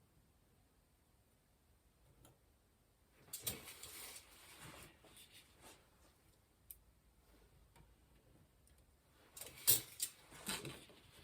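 Clicks and short rattles of small metal parts being handled during bicycle rear-hub assembly with loose ball bearings. They come in two brief clusters, about three and a half seconds in and again near the end, with a few faint ticks between.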